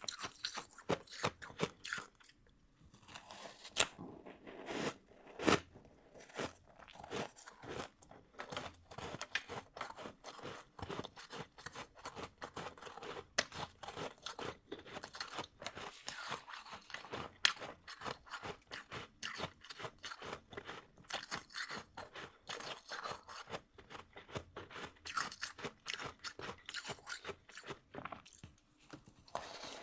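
Close-up chewing of powdery freezer-frost snow ice: a dense, irregular stream of crisp crunches, with a short pause a few seconds in.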